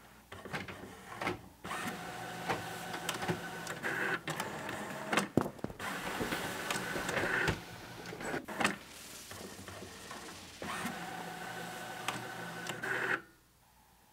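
Inkjet all-in-one printer running, whirring and clicking, with a few louder knocks about midway. It stops suddenly near the end.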